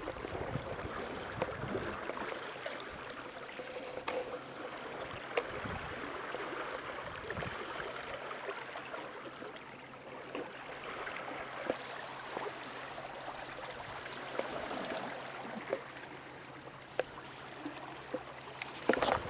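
Sea water lapping and sloshing in a harbour, a fluctuating wash with scattered small clicks and splashes, over a faint low steady hum.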